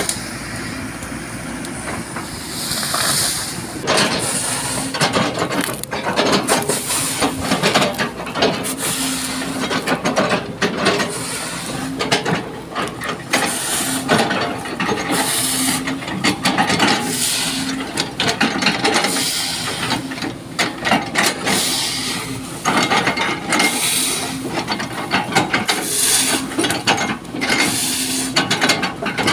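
Excavator bucket repeatedly chopping down into an oil palm trunk, cutting it into slices: a dense run of cracking and crunching wood over the excavator's running engine and hydraulics. The chopping begins a few seconds in.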